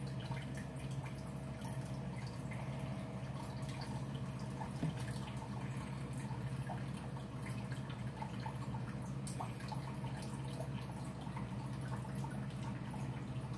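A steady low hum with faint, irregular ticks scattered through it.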